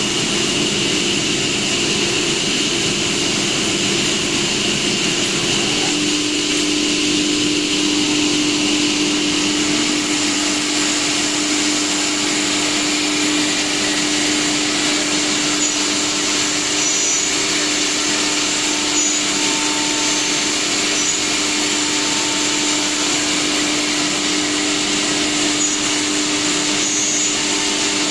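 Ruinuo R-1325F-E CNC router with a saw-blade head running, its spindle and dust extraction giving a steady, loud machine noise with a high whine over it. A low hum grows stronger about six seconds in.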